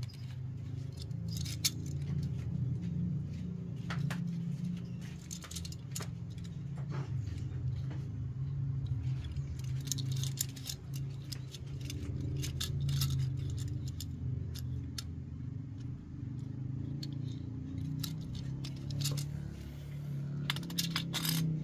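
Toy tractor being handled: light plastic clicks and rattles come at irregular moments over a steady low hum.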